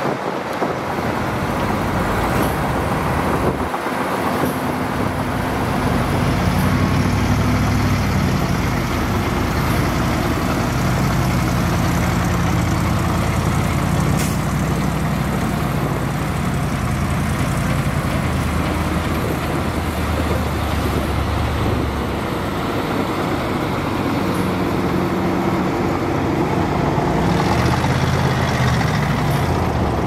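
Crawler bulldozer's diesel engine working hard as it pushes dirt, a steady loud drone whose pitch rises and falls with the load.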